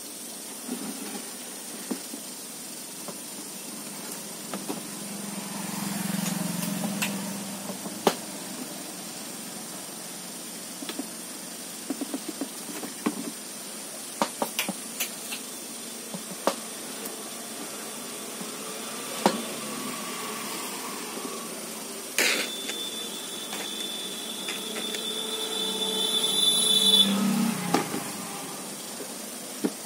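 Scattered clicks and knocks of hands and tools handling a TV's plastic back panel and circuit boards, over a steady hiss. A low rumble swells twice, and about two-thirds of the way in a sharp knock is followed by a high steady tone lasting about five seconds.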